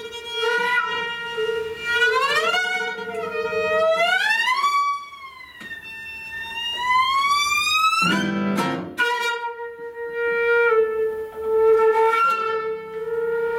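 Contemporary chamber trio of flute, viola and classical guitar playing live. A held note sounds throughout while a second line slides slowly upward in a long glissando, broken about eight seconds in by a brief noisy guitar chord.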